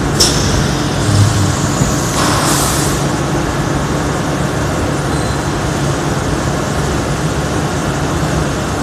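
Thermoforming vacuum packaging machine running with a steady mechanical hum. Short sharp hisses sound about a quarter-second in and again around two and a half seconds.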